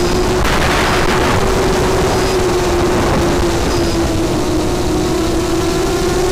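FPV quadcopter's brushless motors and propellers whining steadily, heard from the onboard camera; the pitch sags a little midway and climbs back toward the end. A brief rush of noise comes about half a second in.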